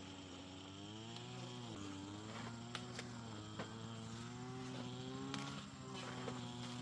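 A small engine running, its speed dipping and rising several times, over a steady high insect drone with a few sharp clicks.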